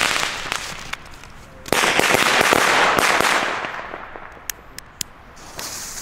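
Xplode Smoke Bird smoke firework burning: a sputtering, crackling hiss, then about two seconds of loud rushing hiss that fades away, followed by a few sharp snaps, and the hiss picking up again near the end.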